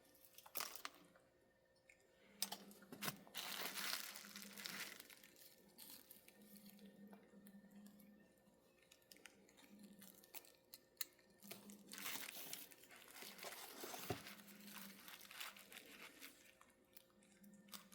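Faint hum of a Rivarossi Casey Jones 4-6-0 model locomotive's small electric motor, running in short spurts of a second or three as power is applied through clip leads. Scattered clicks and rustling of hands handling the model and wires run alongside.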